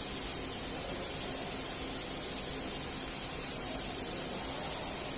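Woodworking CNC router running during an automatic tool-length measurement: a steady hiss with a faint low hum as the tool creeps slowly toward the tool-length sensor.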